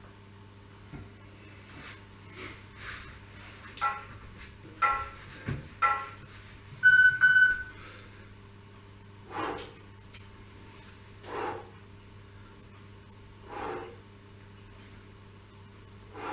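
Three short tones about a second apart, then a loud, longer electronic beep, a countdown timer signalling the start of the exercise. After it come sharp exhalations every two seconds or so, the breaths of someone doing push-ups.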